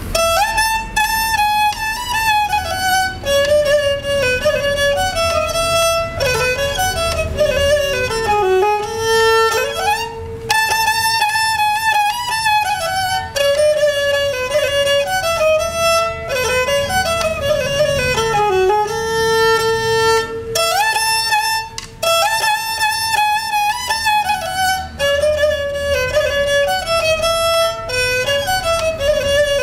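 Nepali sarangi, a handmade bowed folk fiddle of khamari wood, playing a solo folk melody with sliding notes between pitches; the same phrase comes round about every ten seconds.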